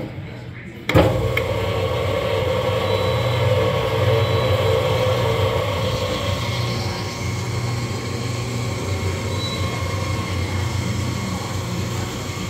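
Hobart 4246 mixer grinder running empty in mix-and-grind mode, its three-phase motor driving the mixing paddles and grinding auger. A sudden clunk comes about a second in, then the machine runs on steadily with a hum.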